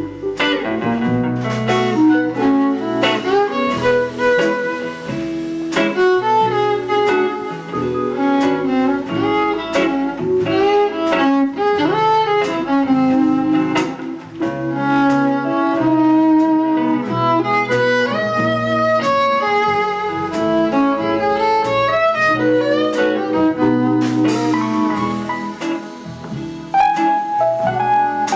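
Instrumental break in a live band performance: a fiddle plays a busy melodic solo over guitar and bass accompaniment.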